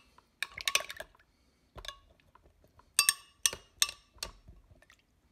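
Metal spoon clinking and scraping against the glass jar of an Oster blender while spooning in Greek yogurt, with a short ring after each hit. A quick cluster of clinks comes early, then four sharp clinks about half a second apart after the midpoint.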